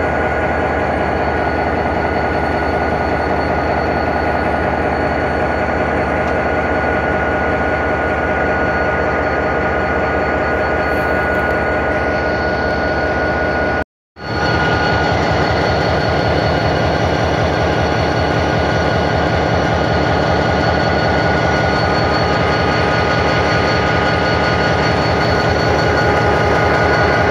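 EMD DDM45 diesel-electric locomotive's engine running close by: a loud, steady throb with a pulsing low rhythm and a steady high whine over it. The sound cuts out for an instant about halfway through, then resumes the same.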